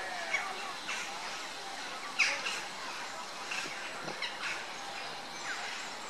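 Birds chirping: short, high, falling calls every second or so, the loudest about two seconds in, over a steady outdoor background hiss.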